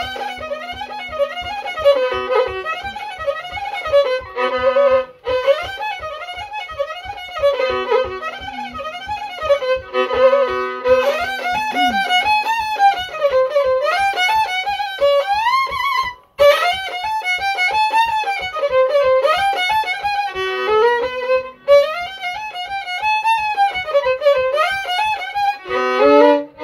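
Solo violin bowed by hand, a homemade instrument with a carved head on its scroll. It plays a continuous melody that rises and falls in quick runs, with a brief break in the playing about two-thirds of the way through.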